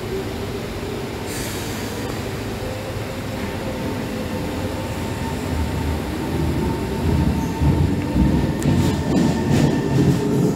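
SMRT C151 metro train's GTO chopper traction motors whining as the train pulls out and accelerates, the tones rising steadily in pitch. The train gets louder over the last few seconds, and a few sharp clicks come near the end.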